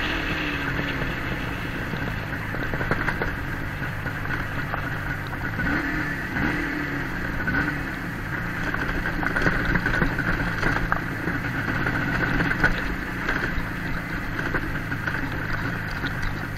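A motor vehicle on the move, its engine running steadily.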